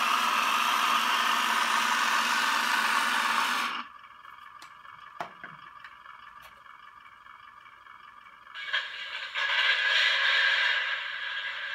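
Small geared electric motors and plastic tracks of a 1/35-scale RC Maus tank model running, cutting off suddenly about four seconds in. A few light clicks follow, then a second small motor whirs up near the end and settles lower.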